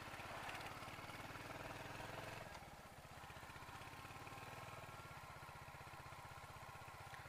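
Royal Enfield Hunter 350's single-cylinder engine running steadily at low revs, with a slight shift in its note about two and a half seconds in.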